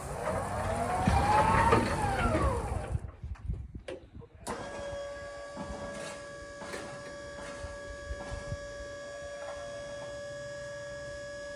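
Electric stacker forklift's motors whining: a pitch that rises and then falls in the first few seconds as it drives, then, after a short break, a steady electric hum with faint clicks as the hydraulic pump raises the mast.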